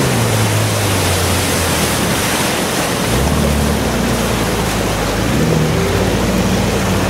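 Off-road SUV driving through a shallow rocky river: water splashing and rushing around the tyres over the steady noise of the stream, with its engine running underneath. The engine grows louder and deeper about three seconds in as the vehicle comes past close by.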